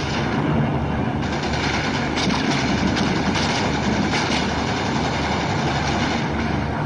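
A steady, dense mechanical rumble like heavy vehicles, with a few faint sharp cracks about two to four seconds in.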